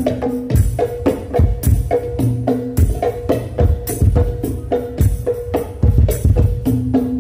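Hadroh hand drums played in a quick, steady rhythm through a PA system: sharp slaps on small drums over deep bass drum beats, with a ringing drum tone.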